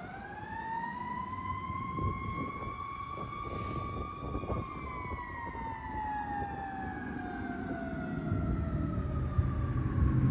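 Fire engine siren giving one long wail: it rises in pitch over the first four seconds or so, then falls slowly, while the engine pulls away. A low rumble runs underneath.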